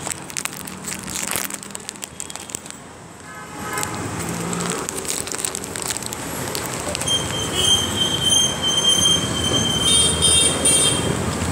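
A rumbling noise that grows louder partway through, joined about seven seconds in by a steady, high-pitched squeal that holds for several seconds.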